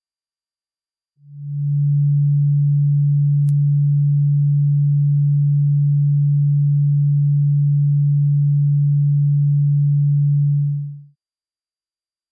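Electronically generated dog-deterrent tone: a thin, very high-pitched steady whistle tone sounds throughout. A loud, steady low hum tone comes in about a second in and cuts off about a second before the end.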